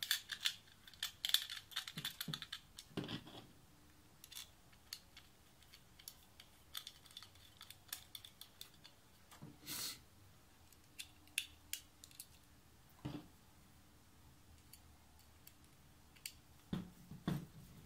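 Irregular light metallic clicks and taps, a few louder than the rest, as a low-profile metal faceplate bracket is fitted to a graphics card and its small screws are threaded in by hand and tightened with a screwdriver.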